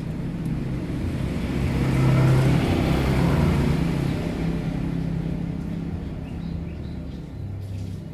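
A motor vehicle passing by: a wide rush of noise swells to its loudest about two to three seconds in and fades away over a steady low engine hum.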